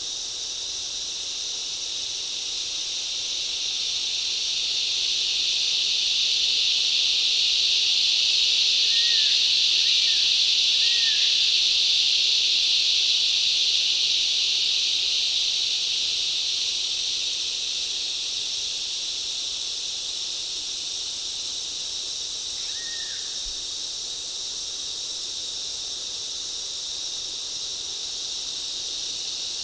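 Rainforest insect chorus: a dense, steady, high shrill drone that swells louder through the middle and then eases back. A few short bird chirps come through, three close together about nine seconds in and one more a little past the middle.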